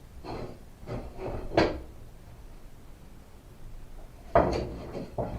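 Several wooden knocks and scrapes as wooden blocking is pulled out from around a newly hung storm door, with the two loudest knocks about a second and a half in and near the end.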